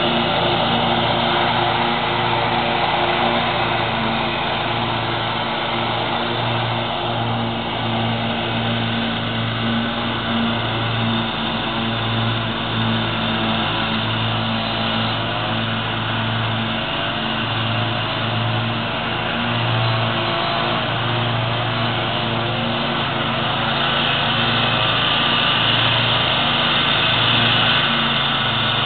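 Commercial riding lawn mower's engine running steadily as it cuts grass, its hum rising and falling slightly as the mower moves.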